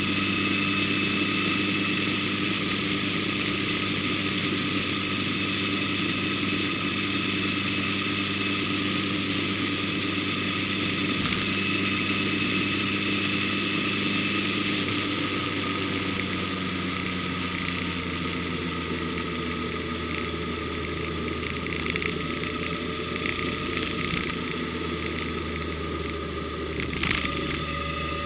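Vehicle engine running at a steady cruising speed, with wind and road noise. It eases off about halfway through, there is a short knock near the end, and the engine picks up again at the end.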